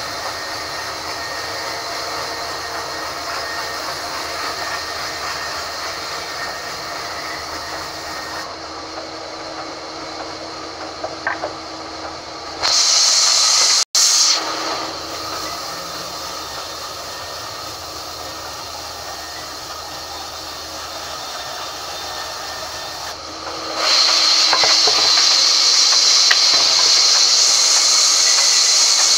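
Sawmill band saw running steadily, then a loud, high hiss as the blade cuts into the log near the end. A short burst of the same hiss comes about halfway through, broken for an instant by a dropout.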